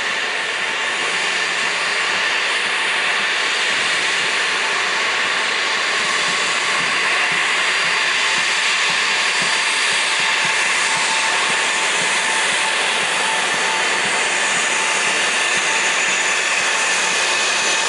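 Twin rear-mounted turbofan engines of an Embraer ERJ-family jet at taxi power: a steady whining rush that grows a little louder over the first few seconds as the aircraft rolls closer.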